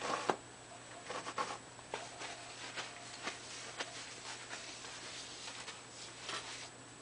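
Light handling noises: a few short scratchy rustles and clicks, the most marked right at the start, around a second and a half in, and again near the end.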